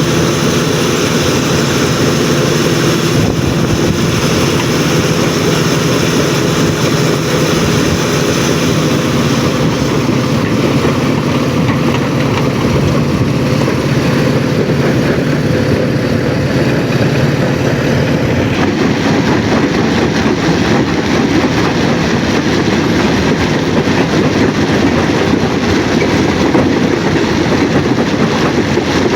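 Heavy machinery at a stone crushing plant running continuously, a loud mechanical rumble. A steady hum runs through the first half and gives way to a rougher, noisier sound a little past the middle.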